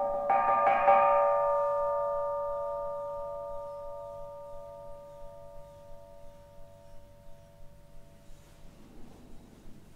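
Background music: bell-like tones are struck just after the start and ring on together, slowly fading away over several seconds.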